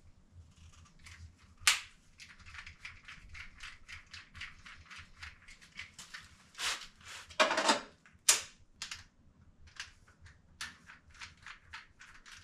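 Hand work inside a residential breaker panel while old breakers are swapped for new ones: quick runs of small clicks, several a second, broken by a few sharper snaps, one about two seconds in and a cluster near the middle.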